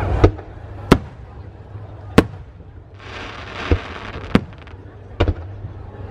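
Aerial fireworks shells bursting overhead: six sharp bangs spread over about five seconds, with a spell of crackling in the middle.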